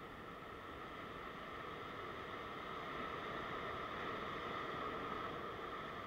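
Ocean surf breaking and washing over the rocks: a steady rush of water that swells a little louder about halfway through as a wave surges in.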